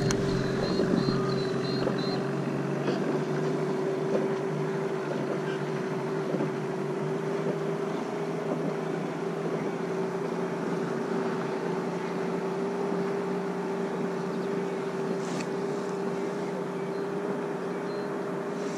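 Small boat's outboard motor running steadily on the river, a constant hum that holds one pitch throughout.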